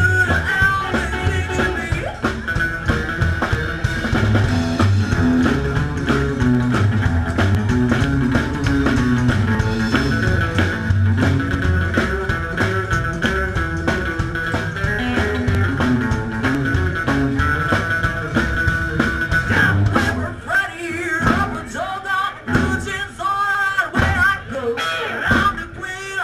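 Live rock and roll band playing: upright bass walking under drums and guitar, with a woman singing. About twenty seconds in the band breaks into choppy stop-start hits with short gaps between them.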